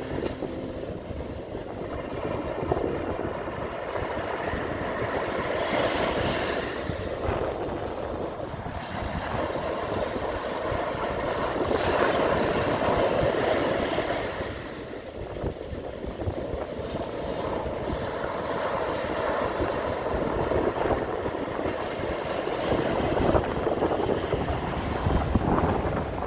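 Sea waves breaking and washing up a beach, swelling and easing in repeated surges every few seconds.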